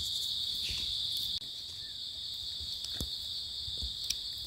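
Insects keeping up a steady, high-pitched drone, with a few faint clicks.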